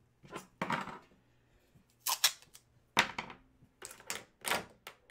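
A string of sharp, irregular clicks and taps, about nine in five seconds, with quiet between them.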